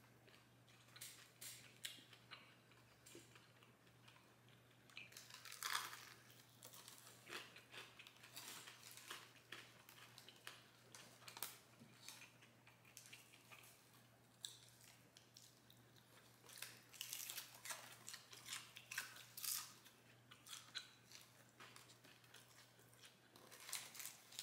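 Faint chewing and crunching of a crispy fried bone-in chicken wing, a string of short, irregular crunches and mouth clicks, the loudest about six seconds in.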